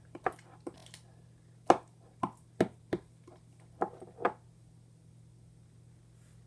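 Slime being stirred with a plastic mixing stick in a plastic container: about ten short, sharp clicks and sticky pops spread over four seconds, the loudest a little under two seconds in.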